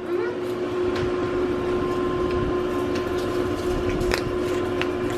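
A steady machine hum with a constant low tone, with a few faint clicks over it.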